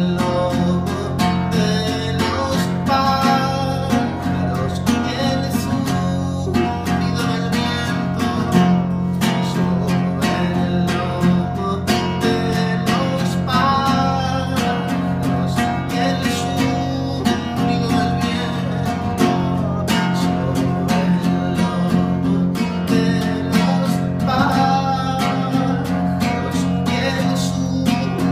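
Nylon-string classical guitar strummed in a steady rhythm, with a man singing a melody over it.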